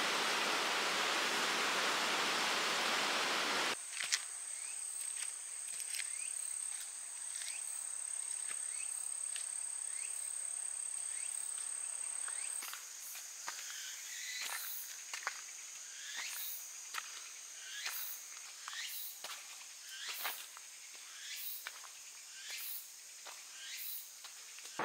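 A steady rushing hiss for the first few seconds, then insects trilling steadily at a high pitch. Over the second half, footsteps crunch up a dirt and stone trail about once a second.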